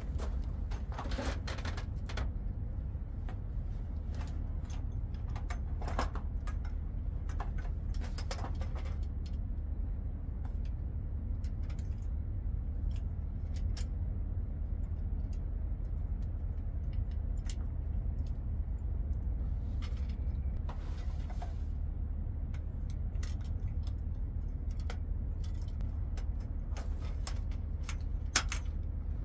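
Folding camp table being unpacked and opened: the fabric carry bag rustles and the light metal tubular frame clicks and clinks as its legs and rails are handled, with one sharper click near the end. A steady low hum runs underneath.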